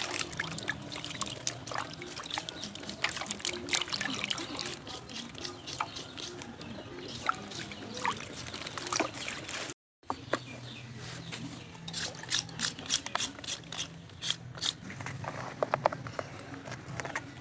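Close-up eating sounds of crab being eaten: chewing, crunching and wet mouth smacks in a rapid, irregular run of sharp clicks. The sound breaks off for a moment about ten seconds in.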